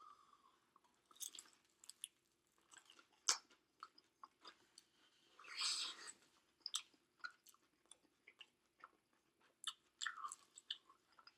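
A person chewing and biting food close to the microphone: faint, scattered wet mouth clicks, with a longer, louder crunchy noise about halfway through.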